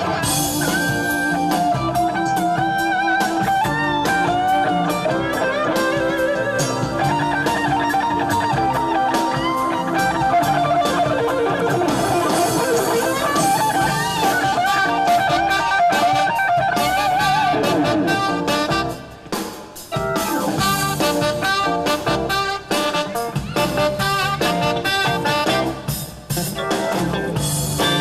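Band music: guitar over a drum kit, with a wavering melody line, dipping briefly in loudness about two-thirds of the way through.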